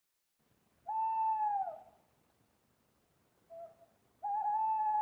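Owl hooting: two long, even hoots, the first sliding down at its end, with a short soft note between them.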